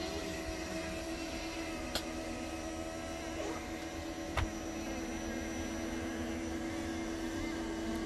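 Motorhome slide-out motor running steadily as the slide room retracts, a constant hum with a couple of faint knocks from the moving slide, one about two seconds in and one about four and a half seconds in.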